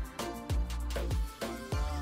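Background music with a steady beat: deep bass drum hits that slide down in pitch, about twice a second, over held bass notes.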